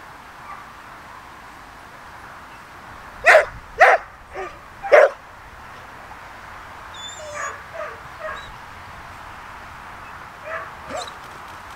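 A dog barks four times in quick succession a little over three seconds in, then gives a few fainter short barks later on.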